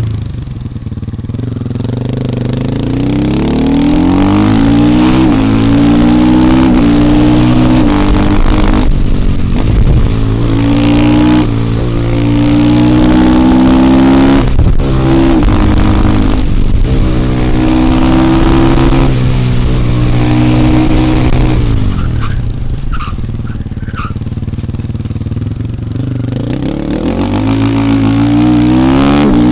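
KTM 450 EXC's single-cylinder four-stroke engine pulling up through the gears, its note rising and breaking briefly at each shift, then holding a steady pitch. About three-quarters through it eases off and the revs fall, then it accelerates again near the end.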